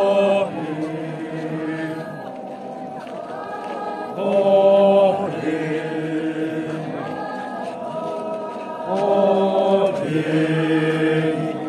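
A large group of men chanting together in unison, a repeated traditional phrase of held notes that comes round about every four to five seconds, each round opening with a louder surge of voices.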